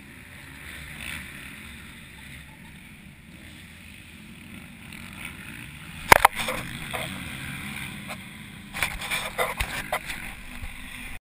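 Muffled outdoor noise through a GoPro camera's housing: a faint steady rush with distant dirt-bike engines. About six seconds in come a few sharp knocks and clicks, and a cluster more near the end.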